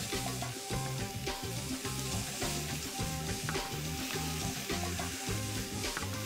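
Chunks of raw lamb, pork and beef searing in a little olive oil in a hot roasting pan over a gas flame, sizzling steadily as the pieces are laid in by hand to brown.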